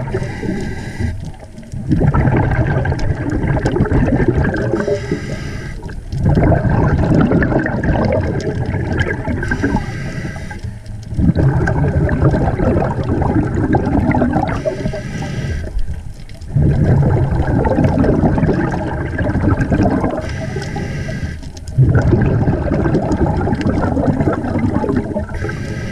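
Scuba diver breathing through a regulator underwater: a short hiss on each inhale, then a longer, louder rumble of exhaled bubbles, repeating about every five seconds, six breaths in all.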